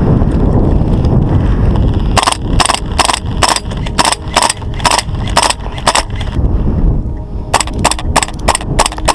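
An airsoft rifle firing rapid single shots, about four or five a second for some four seconds, then, after a short pause, another run of shots near the end. Before the shooting there is a low rumble of movement.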